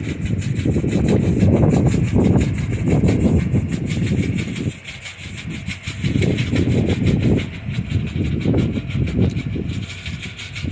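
Tractor-drawn blueberry harvester running: a low, uneven rumble that drops briefly about halfway through, over a fast, even clicking.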